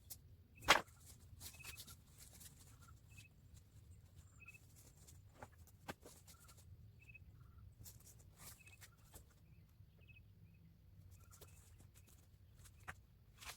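Short, high bird chirps repeating at irregular intervals, with scattered clicks and knocks and one sharp knock a little under a second in.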